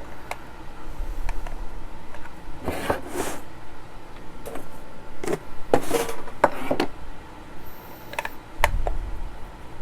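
A screwdriver working at screws deep inside an old plastic multimeter case, heard as scattered clicks and a few short scraping rattles as the tool and the case are handled.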